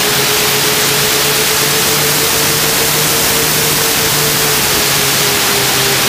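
Loud, steady rush of air over the onboard camera of a model airplane in flight, with the steady drone of its motor and propeller. The drone's pitch dips slightly about four and a half seconds in.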